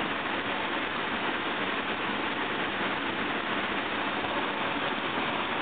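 Rushing water of a mountain canyon stream pouring down a rock chute, a steady rush that does not change.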